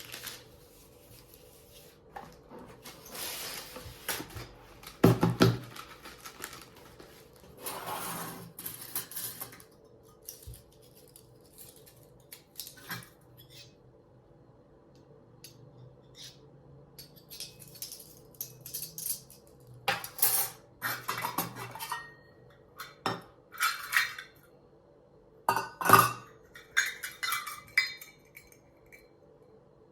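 Dishes and kitchen utensils being handled: scattered clinks and knocks with short spells of handling noise, busiest in the second half.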